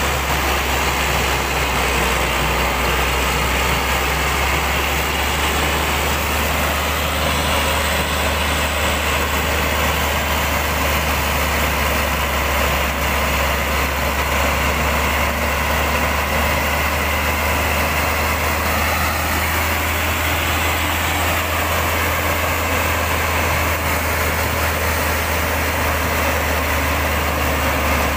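Hyundai logging truck's diesel engine running at a low, even speed: a steady, unchanging low drone with no revving.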